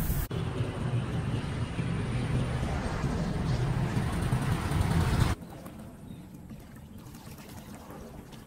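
Rushing floodwater churning, with a heavy low rumble. About five seconds in, it cuts abruptly to a much quieter wash of water with faint trickling.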